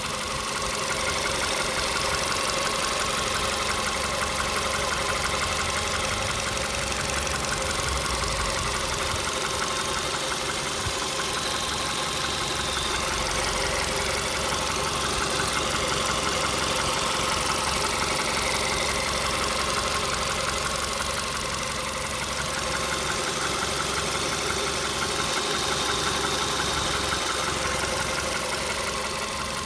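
Volkswagen Polo Sedan engine idling steadily with a fast, even ticking running through it. Whether that ticking is a real engine knock is the owner's open question.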